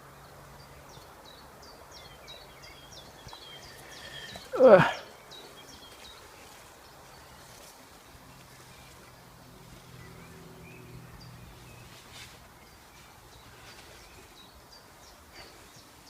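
Small songbird singing a run of short high chirps, about three a second, for several seconds, with a few more later on. About four and a half seconds in, one loud, steeply falling sound stands out above everything else, and a faint low hum runs underneath.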